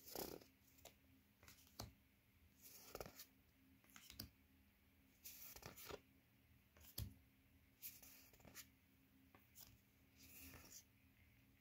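Faint sliding and rustling of cardboard trading cards, 2021 Topps Heritage baseball cards, being flipped through by hand, with a soft swish or tap about once a second as each card is moved off the stack.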